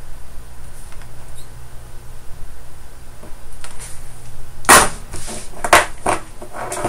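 A low steady hum, then from about two-thirds of the way in several sharp knocks and clatters as the small circuit board is picked up and moved about on the bench.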